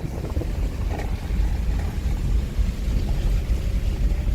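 Low, steady rumble of a car's engine and tyres heard from inside the cabin while driving on a rough road, with the windows open.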